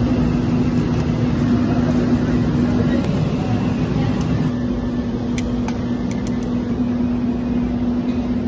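Steady mechanical hum of kitchen equipment, with one constant low tone over a rumble, and a few light clicks of metal utensils about five to six seconds in.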